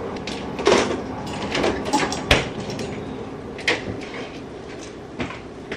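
Refrigerator and freezer doors being opened and the shelves rummaged: a string of knocks and clunks from doors and items being handled, the loudest about two and a half seconds in.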